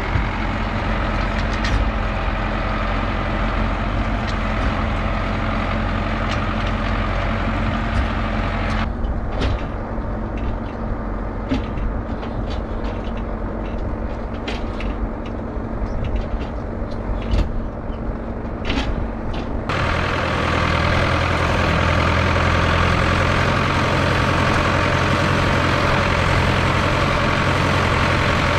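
MTZ-82 tractor's four-cylinder diesel engine running steadily under way, towing two trailers loaded with round hay bales, with scattered knocks and rattles in the middle stretch. The sound changes abruptly about nine seconds in and again about twenty seconds in, the engine louder and fuller in the last part.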